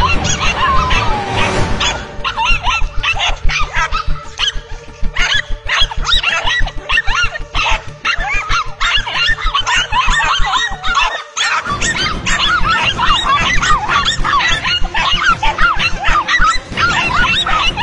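Several dogs barking and yipping excitedly in rapid, overlapping barks, with a brief dip about eleven seconds in.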